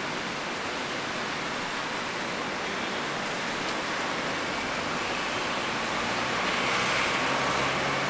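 Steady hiss of rain with a low engine hum underneath; a vehicle grows louder near the end.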